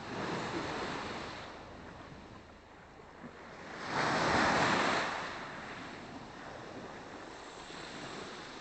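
Small sea waves washing onto a pebble beach, swelling and falling back, with the biggest wash about four seconds in.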